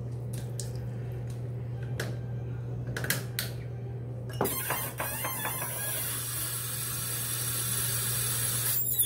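A few light handling clicks and knocks, then a faucet is turned on about four and a half seconds in, and tap water runs with a steady hiss to fill the slime kit until it is shut off suddenly near the end.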